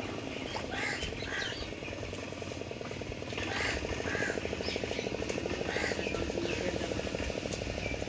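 A boat motor runs steadily with a fast, even pulse, and short bird calls sound over it about half a dozen times.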